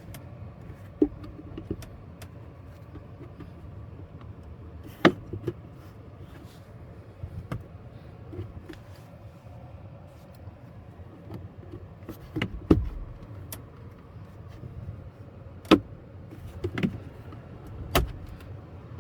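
Sharp plastic clicks and knocks as the glove box compartment is handled, unclipped and lowered. Under them runs the steady low hum of the running car.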